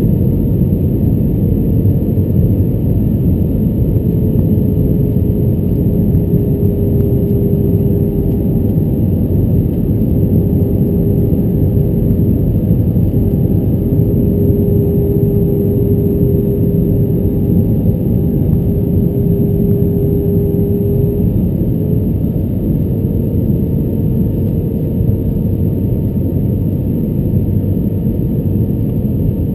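Airbus A320-200 cabin noise on approach: a steady rumble of airflow and jet engines heard beside the wing, with a faint engine drone that drops in pitch a few seconds in and rises again a little over twenty seconds in, as thrust is eased back and then added.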